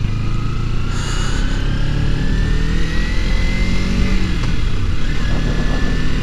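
Motorcycle engine accelerating, its pitch rising steadily for about four seconds and then levelling off, over a low wind rumble on the microphone.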